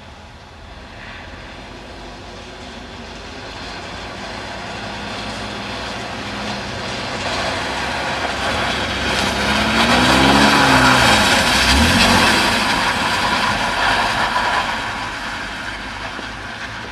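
Mercedes-Benz 280SE's straight-six engine revving as the car drives up on a wet, icy lot and passes close, its tyres hissing through the slush. The engine pitch rises and falls twice near the loudest point, and the sound fades again toward the end.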